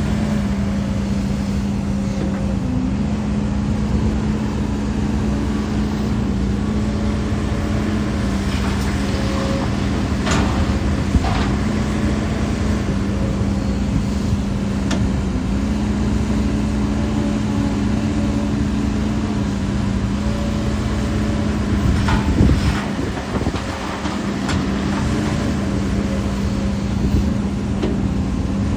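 HIDROMEK HMK230LC excavator's diesel engine running steadily at working speed, with a few sharp knocks about ten, eleven and twenty-two seconds in.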